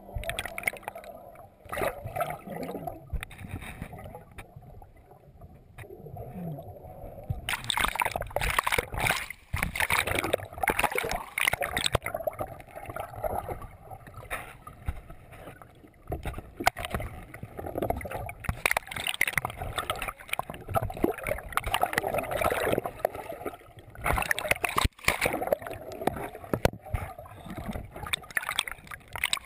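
River water gurgling, bubbling and rushing around a waterproof camera held under the surface of whitewater, heard muffled through its housing. It is quieter for the first several seconds, then turns louder and more churning from about seven seconds in.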